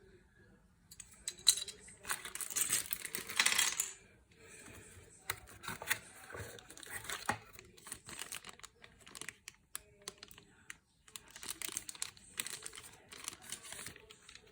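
Unboxing handling sounds: packaging crinkling and rustling in irregular bursts, with sharp clicks and light knocks of parts being handled and set down.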